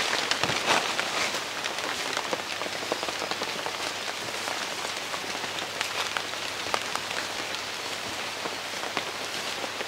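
Steady patter of light rain on forest leaves, with many small scattered ticks of drops.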